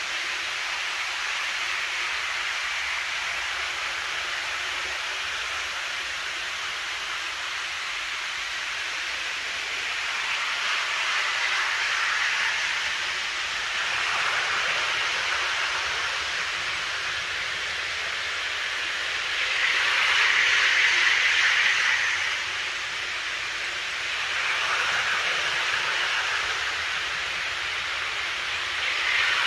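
Model trains running on a layout: a steady whirring hiss of wheels on track and motors that swells several times as trains pass close, loudest about two-thirds of the way through.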